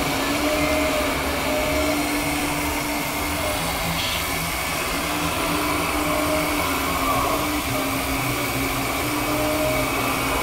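Hydraulic pump of a radio-controlled Liebherr R934 model excavator whining as the boom and bucket are worked, its pitch line breaking off and coming back as the controls are moved.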